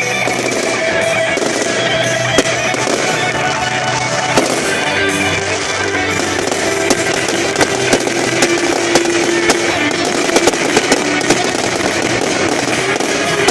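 Fireworks popping and crackling over music. A few sharp bangs come early on, and from about halfway they turn into a quick run of pops.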